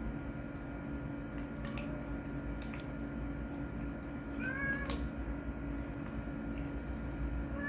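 Domestic cat meowing: one short, high meow about halfway through, and another starting right at the end, over a steady low hum.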